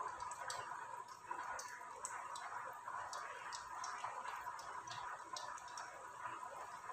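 An anarsa deep-frying in a small pan of oil over a low flame: a steady gentle sizzle with scattered small pops and crackles as hot oil is spooned over its top with a slotted spoon.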